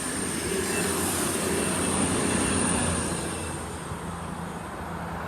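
CrossCountry Voyager diesel multiple units, a Class 220 and a Class 221 coupled, running past with a steady engine hum and rail rumble that eases off after about three seconds as the train draws away.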